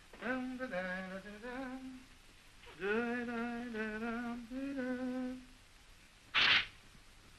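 A man humming a slow tune in two phrases of long, slightly wavering notes. Near the end, one short loud rasp of a straight razor scraping across a lathered face.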